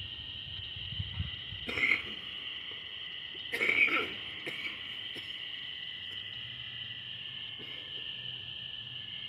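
Steady high-pitched chorus of night insects, with two short coughs from a person about two and four seconds in.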